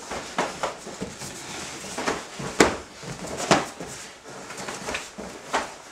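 Blows landing in full-contact karate sparring: a run of short, dull hits from punches and kicks striking the body, two of them harder than the rest at about two and a half and three and a half seconds in.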